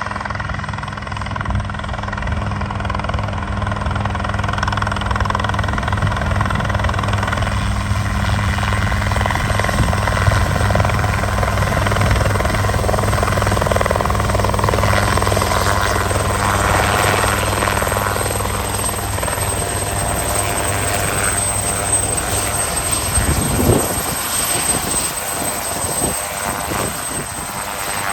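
Helicopter running steadily with a low rotor-and-engine hum. About three quarters of the way through, the low hum falls away with a brief downward sweep, leaving a thinner noisy rush.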